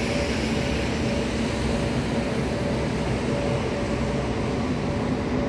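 A steady, even rushing noise with a constant two-tone mechanical hum underneath, as of machinery or a motor running without change.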